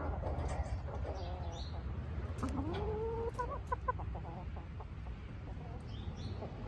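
Domestic hens clucking close by: a low, wavering murmur at first, then a rising drawn-out note about halfway through, followed at once by a quick run of short clucks. A low steady rumble sits underneath.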